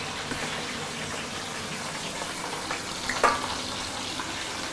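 Mackerel shallow-frying in hot oil in a stainless steel pan: a steady sizzle of bubbling oil. A brief knock about three seconds in, as a pan is set down on the hob.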